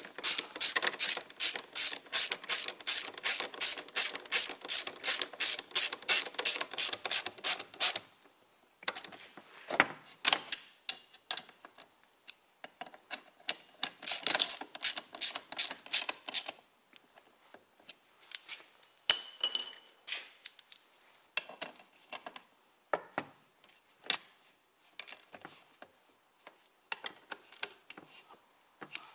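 Hand socket ratchet clicking rapidly, about four clicks a second, as the screws holding the wiper linkage assembly are tightened. It is followed by shorter runs of ratcheting, scattered clicks and a couple of ringing metal tool clinks.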